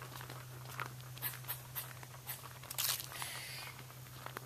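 Faint, uneven footsteps and small crunches of someone walking along a paved road, over a steady low hum.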